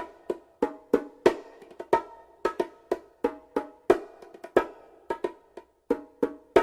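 Percussion sound effect: a drum or wood block struck in a steady rhythm, about three sharp hits a second, each with a short ringing tone.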